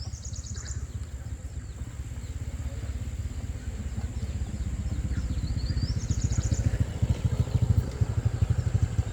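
A small engine running with a fast low pulsing that grows slightly louder. Two short high chirping calls come at the start and about six seconds in.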